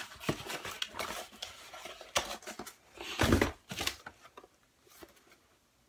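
Rustling and clicking of packaged items being rummaged and lifted out of a cardboard box, with a louder thump a little over three seconds in.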